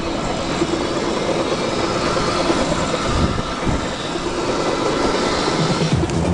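Inline skate wheels rolling on asphalt from a crowd of skaters, a steady rolling rumble heard from among them. Music comes in near the end.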